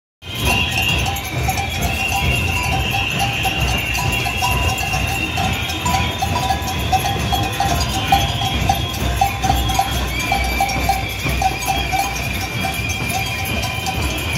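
Many cowbells ringing continuously and unevenly, shaken by people in a large walking crowd, over the steady shuffle and hubbub of the crowd.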